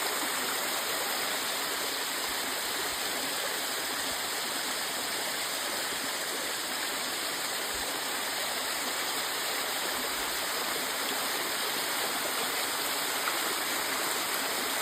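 Panther Creek Falls, a waterfall, making a steady, even rushing of falling water.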